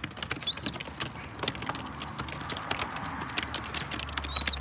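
Racing pigeons pecking grain off a hard surface: a rapid, irregular patter of beak clicks. Two short high chirps, about half a second in and again near the end.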